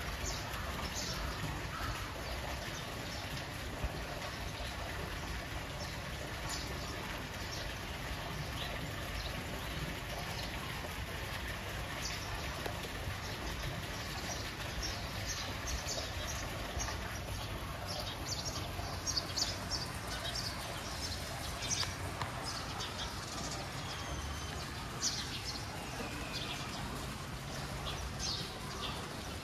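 Small birds chirping in short, high, repeated calls, some gliding in pitch, becoming more frequent partway through, over a steady background wash of noise.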